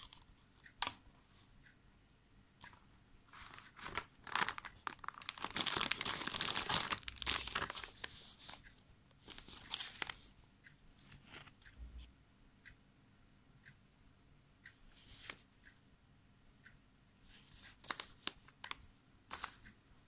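Thin plastic zip-lock bags crinkling as they are handled, densest and loudest for several seconds in the first half. Scattered small clicks and short rustles follow.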